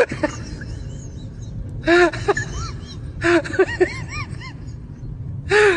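Small dog whimpering and yelping in short, high-pitched cries that rise and fall, in several bouts about one to two seconds apart; a frightened dog being held for handling.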